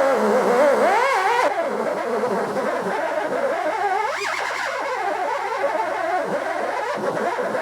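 Warbling electronic music for about the first second and a half. Then a small electric power tool runs with a wavering pitch as it polishes an aluminium intake manifold, bogging under the load; it is way underpowered for the job.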